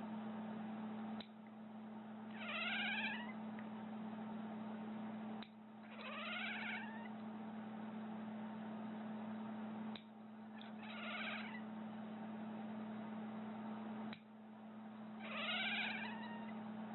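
A cat meowing four times, one drawn-out meow roughly every four seconds, over a steady low hum.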